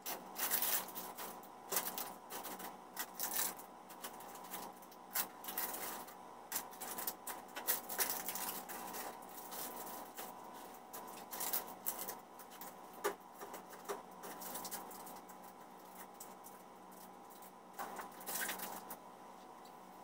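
Irregular light clicks, taps and rustles of small packaged goods and plastic packets being picked up, sorted and set down on a glass shop counter. The handling is busier in the first half and sparser toward the end.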